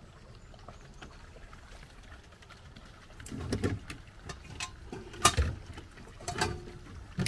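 Plastic water jugs and containers being handled and set down in a vehicle's rear storage: a few knocks and clunks begin about three seconds in, with the sharpest click near the middle.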